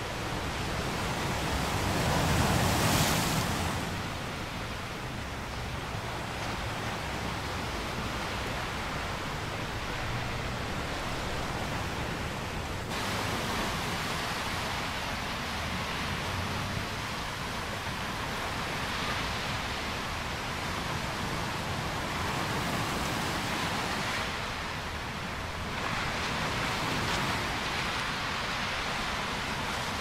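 Ocean surf breaking on a sandy beach: a steady wash of waves that swells louder about two to three seconds in and again near the end.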